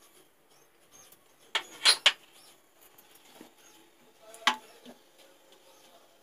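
Metal ladle knocking against a non-stick kadai while stirring whole spices in hot oil: three sharp clinks close together between about one and a half and two seconds in, and one more about four and a half seconds in.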